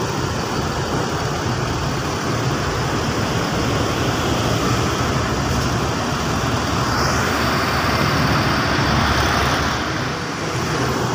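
Diesel coach engines running as a bus pulls out of the garage: a steady low engine hum with a broad rush over it that swells between about seven and ten seconds in.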